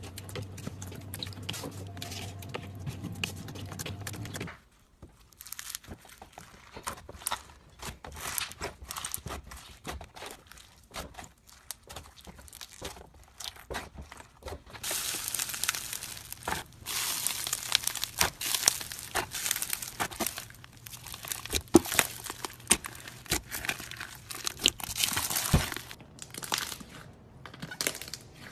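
Slime being squeezed and kneaded by hand: sticky squishing with many sharp pops and crackles, thickest and loudest through the middle of the second half. Over the first few seconds foamy slime is stirred in a bowl over a steady low hum.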